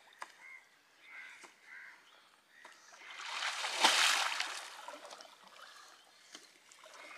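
Water splashing and churning as a fisherman standing in the water beside a wooden canoe hauls in an encircling shrimp net; the splashing swells to a loud surge about four seconds in and then fades.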